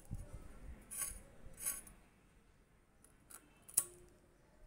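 Drumstick (moringa) pods being cut on a boti's fixed curved blade: a handful of crisp snaps and clicks as the blade cuts through, the sharpest about four seconds in, with a few soft thuds at the start.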